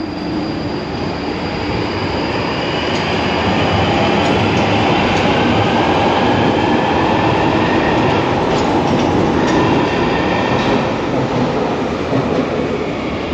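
London Underground train pulling out of the platform and accelerating away, a loud rumble that builds over the first few seconds. A faint motor whine rises in pitch through the middle, and a run of wheel clicks comes a little after the middle.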